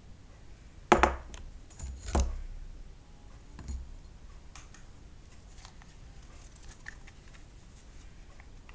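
Wooden boards and small parts being handled on a work surface: two sharp knocks about a second and two seconds in, a softer one shortly after, then a few light clicks and taps.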